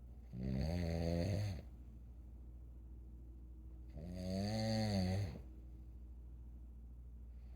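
An elderly person snoring in sleep: two snores about three and a half seconds apart, each about a second long and low-pitched, the second rising and then falling in pitch.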